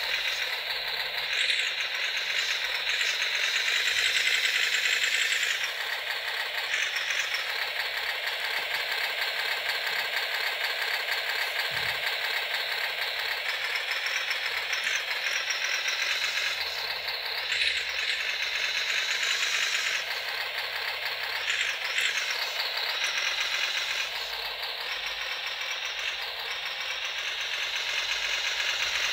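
Simulated truck engine sound from an ESP32 RC engine sound controller, played through the small loudspeaker on a WPL B36 Ural RC truck, tinny with hardly any bass. Its note and loudness change several times as the virtual manual transmission is run through its gears, starting in first.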